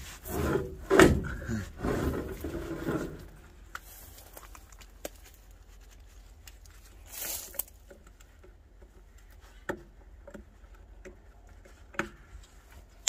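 Gloved hands handling a tire and steel wheel, with heavy scuffing for the first few seconds, then scattered small metallic clicks and a brief scrape as a clip-on wheel balance weight is worked off the rim.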